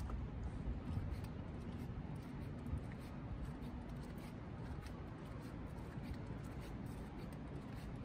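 Footsteps crunching and scuffing on packed snow and slush at a walking pace, over a low steady city rumble.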